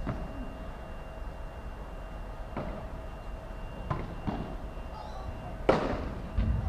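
Padel rally: a series of sharp pops from the ball striking rackets and bouncing off the court and glass, spaced irregularly about a second or so apart, the loudest about six seconds in, over a faint steady hum.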